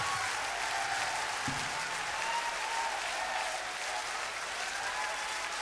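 Large concert audience applauding, with voices calling and cheering above the clapping.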